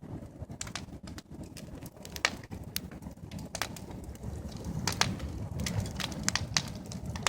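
Sawdust-and-wood fire crackling, with irregular sharp pops and snaps over a steady low rumble.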